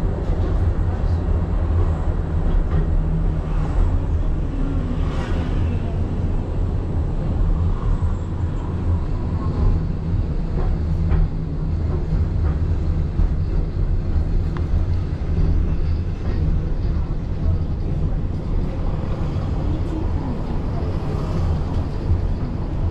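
Tram running along the street, heard from on board: a steady low rumble of the wheels on the rails, with a few faint clicks.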